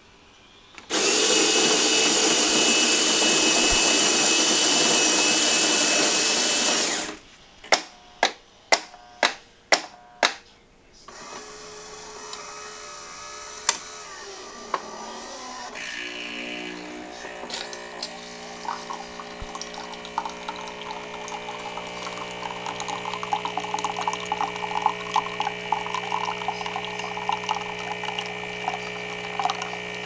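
Saeco Italia automatic espresso machine running a brew cycle: its built-in grinder runs loud for about six seconds, then about six sharp clicks and knocks come about half a second apart. From about halfway the pump hums steadily while coffee trickles into a steel mug.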